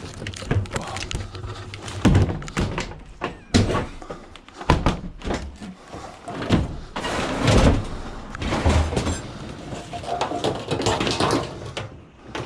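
A washing machine being lifted and loaded into a van: repeated heavy thuds, bangs and clattering of sheet metal against the van, with scraping in between. Quite noisy.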